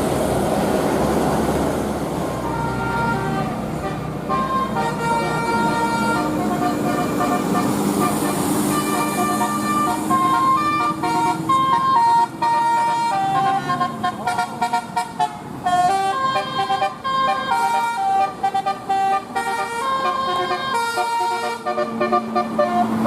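Basuri telolet bus horn playing a fast multi-note melody, its notes stepping up and down in pitch, after a couple of seconds of vehicle rumble.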